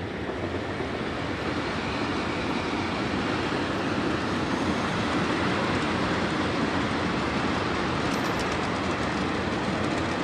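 Freight train rolling past slowly: an EF65 electric locomotive hauling two-axle Wamu 80000 boxcars, a steady rumble of wheels on rail that builds over the first few seconds. Near the end comes a quick run of clicks as the wheels cross rail joints.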